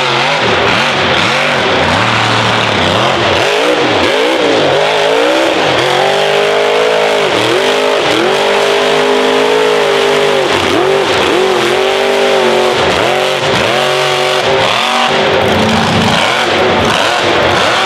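Big Guns mega truck's 2100-horsepower engine revving hard through a mud pit, its pitch rising and falling over and over as the tires spin in the mud.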